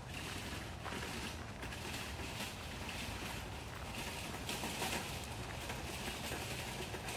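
Footsteps crunching on a sandy dirt path at a walking pace, about two steps a second, over a steady low rumble.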